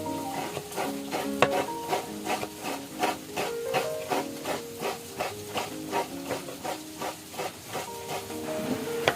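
A spatula stirring and scraping food in a cooking pan in quick, regular strokes, about three a second, with light sizzling. Soft background music plays throughout.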